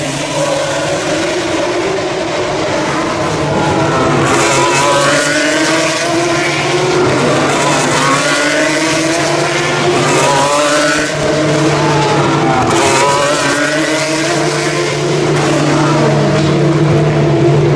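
Several open-wheel single-seater race cars with V6 engines passing one after another, their engine notes repeatedly rising and dropping as they accelerate and shift, over a steady low hum.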